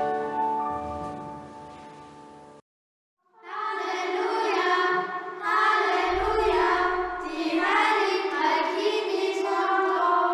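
A group of children singing together. Before they start, a sustained instrumental chord fades and cuts off abruptly, leaving a moment of silence.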